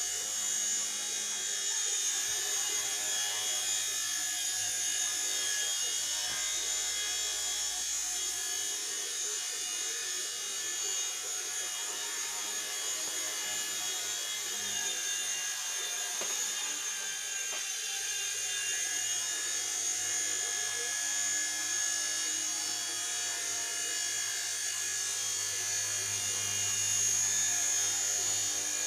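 Small indoor RC helicopter flying: its electric motor and rotor give a steady high-pitched whine and buzz.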